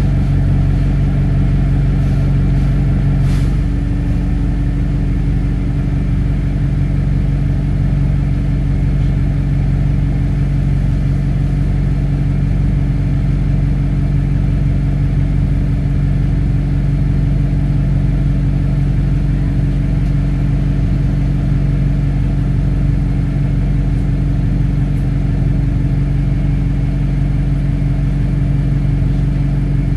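A bus engine heard from inside the passenger saloon, running steadily as a constant low drone with little change in pitch.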